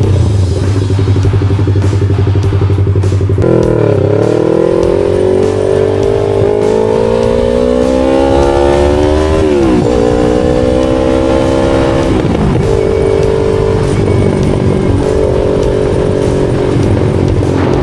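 Yamaha R3's parallel-twin engine under way: steady low running, then the revs climb. Two upshifts drop the pitch sharply before it settles into steady cruising.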